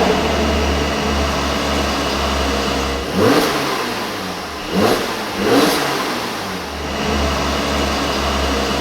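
2020 Mercedes-AMG GLC 43's twin-turbo V6 running, with three quick rev blips in the middle, each a short rising sweep, before it settles back to a steady drone.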